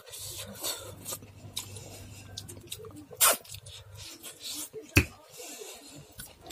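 Close-up eating sounds of dal and rice eaten by hand: wet chewing and lip smacking, with fingers mashing rice on a steel plate. Two sharp clicks stand out, one about three seconds in and a louder one about five seconds in.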